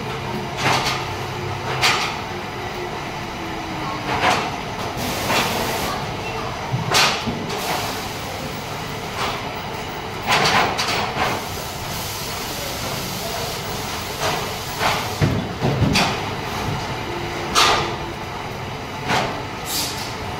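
Adhesive tape being pulled off a roll in short rasping strips, repeated every second or two, over a steady factory hum.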